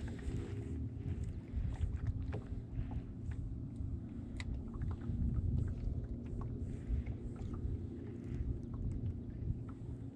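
Boat motor running with a steady low hum, with scattered faint ticks over it.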